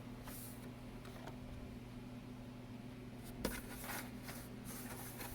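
Faint handling sounds of hands feeling around the case of a Commodore SX-64 portable computer, with one sharper knock about three and a half seconds in, over a low steady electrical hum.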